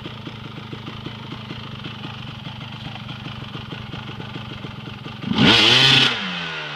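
An off-road vehicle's engine idling steadily, then a quick throttle blip about five seconds in: the revs shoot up loudly for under a second and glide back down to idle.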